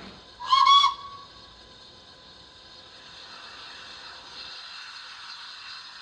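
Model steam locomotive sound decoder sounding one short whistle blast of about half a second, recorded Thompson A2 Pacific whistle through the model's small speaker, then a faint steady hiss.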